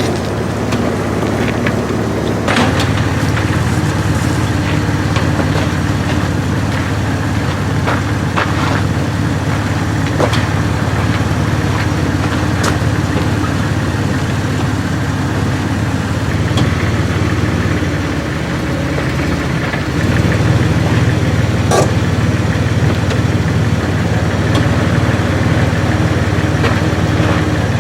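Car or truck engine running steadily at low speed, with a few short clicks and knocks over it. The engine note dips briefly about two-thirds of the way through, then returns a little louder.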